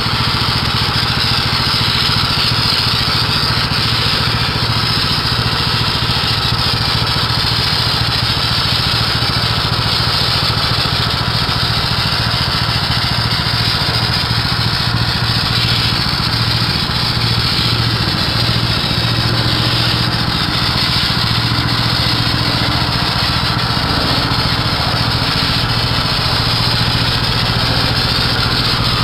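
Small gasoline engine running steadily at constant speed.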